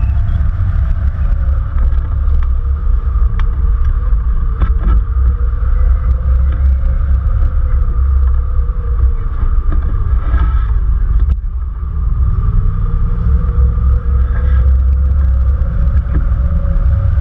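Wind rushing over a hang glider's wing-mounted camera microphone in flight: a loud, steady low rumble of buffeting that briefly eases about eleven seconds in.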